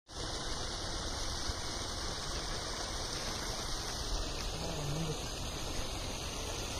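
Steady outdoor hiss with no distinct events, and a brief low voice about four and a half seconds in.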